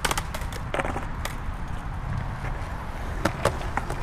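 Skateboard wheels rolling on concrete, a steady low rumble, with a few sharp clacks of the board.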